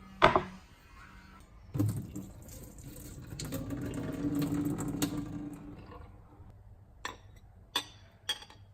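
Kitchen handling sounds: a sharp clink near the start, a knock followed by a few seconds of rushing noise, then three quick clinks near the end, like utensils and dishes being handled.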